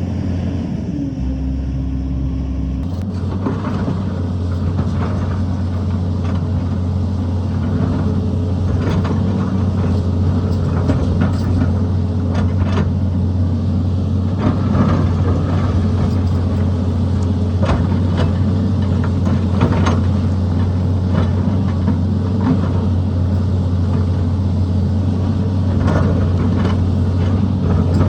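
Tata Hitachi hydraulic excavator's diesel engine running steadily under load, with scattered sharp knocks of the bucket working rock.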